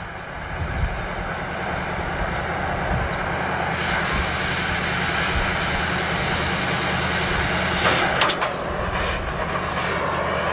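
Oxy-acetylene cutting torch hissing as it cuts the steel hoop bands of a concrete stave silo. About four seconds in the cutting jet comes on with a sharper, louder hiss as the band burns through, and it drops back about eight seconds in with a few short crackles.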